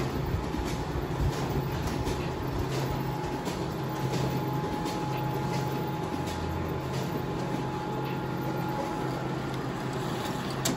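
Toshiba e-STUDIO 757/857-series copier printing continuously: a steady motor and fan hum with light ticks repeating about one and a half times a second as sheets feed through and are ejected.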